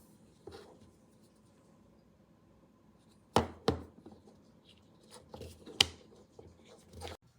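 Handling noise: a few sharp knocks and taps of a small object on a hard surface. Two loud ones come close together about three and a half seconds in, and more follow towards the end.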